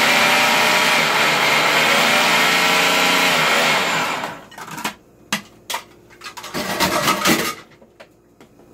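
Food processor motor running loudly as it purées canned chickpeas, winding down and stopping about four seconds in. After it stops come a series of sharp plastic clicks and knocks as the lid and bowl are handled.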